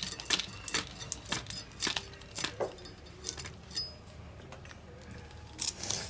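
Cucumber being sliced by hand against the blade of a boti, a run of crisp cuts and light clinks with pieces dropping into a steel bowl. The cuts come several a second, pause about four seconds in, and start again near the end.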